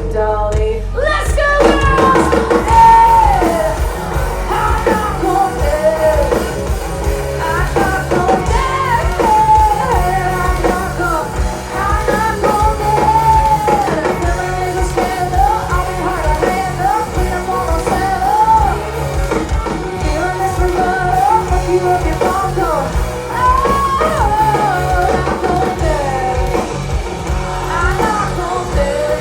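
Live country-rock band playing a song, with drums, bass and guitar under a bending, vocal-like lead melody.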